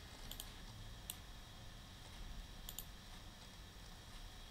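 Computer mouse clicking a few times, short sharp clicks, some in quick pairs, over a faint steady low hum.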